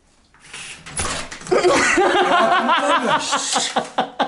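A door is jerked open with a knock about a second in, followed by loud laughter and excited voices that break into rhythmic bursts of laughing.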